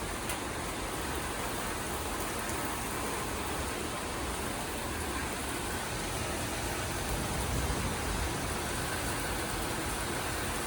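Heavy rain falling in a strong wind: a steady hiss of rain with uneven low rumbling of wind gusts.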